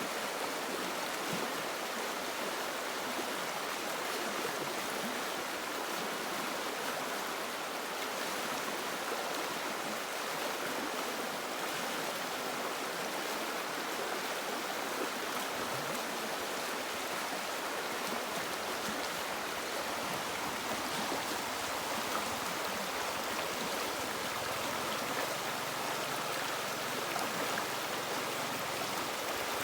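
A river running: a steady, unbroken sound of flowing water.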